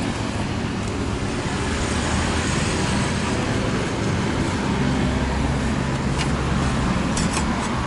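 Steady street traffic noise, with a vehicle engine running close by. A few light clicks come near the end.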